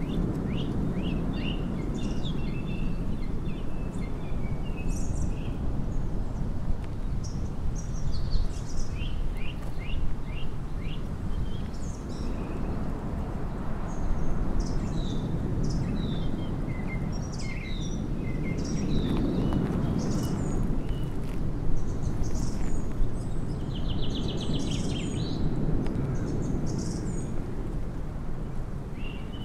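Small birds chirping in short scattered notes, with a rapid trill late on, over a steady low outdoor rumble.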